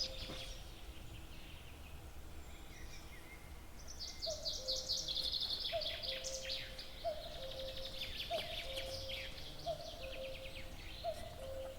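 Nightingale singing loudly in rapid trilled phrases, most intense from about a third of the way in. Under it, a lower short note repeats about once a second.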